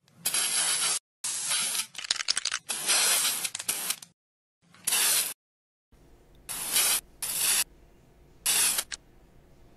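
Aerosol spray-paint can hissing in a series of short bursts, about seven or eight, each lasting under a second with brief silent gaps between them.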